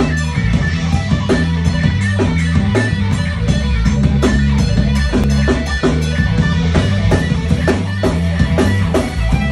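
Live rock band playing loudly: electric guitar and drum kit with a steady beat, low bass notes underneath.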